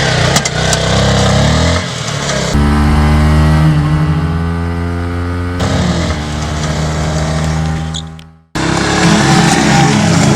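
Yamaha R15 sport motorcycle's single-cylinder four-stroke engine revving: the pitch climbs over the first two seconds, then holds steady at high revs before falling away about eight seconds in. The sound cuts out abruptly for a moment and comes back loud near the end.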